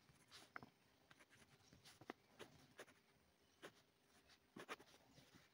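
Faint scratching and ticking of a pen writing on lined notebook paper, in short separate strokes.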